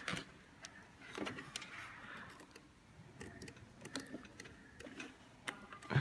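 Faint, scattered small clicks and rustles of hands handling wires and the plastic connector of a scooter indicator.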